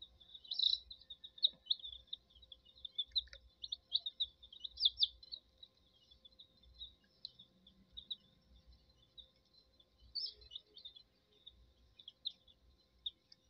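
Young chicks peeping: a dense run of short, high cheeps for about the first five seconds, thinning to scattered cheeps after that.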